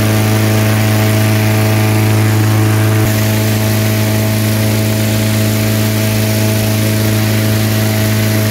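A small engine running steadily: a loud, even hum over a haze of noise, dipping slightly about three seconds in.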